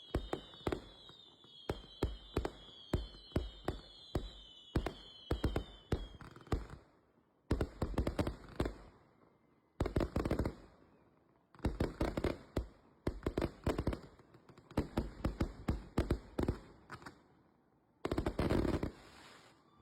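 Fireworks going off in a rapid finale: a string of sharp bangs, the first several shots each with a short whistle falling in pitch, then about six dense clusters of crackling bursts a second or two apart.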